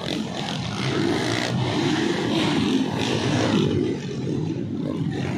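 Dirt bike engines running and revving, their pitch wavering up and down.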